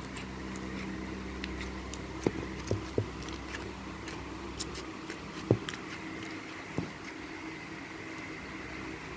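Steady background hum with a few short, soft knocks from hands and the phone touching the tabletop.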